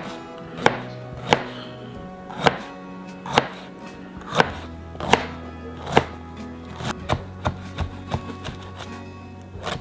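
Kitchen knife slicing a jalapeño into rounds on a cutting board, each cut a sharp knock on the board about once a second. Near the end come quicker, lighter chops through a bunch of cilantro.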